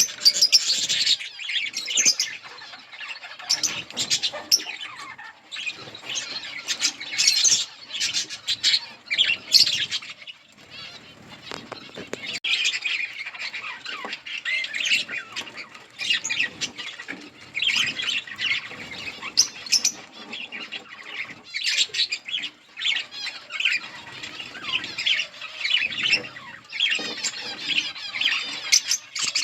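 Flock of budgerigars chirping and chattering continuously, many calls overlapping, with occasional sharp squawks and wing flutters.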